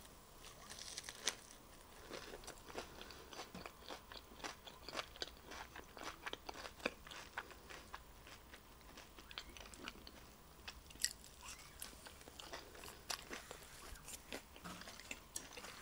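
Close-up chewing and crunching of crisp lettuce leaf dipped in creamy sauce: many small, irregular wet crunches and mouth clicks.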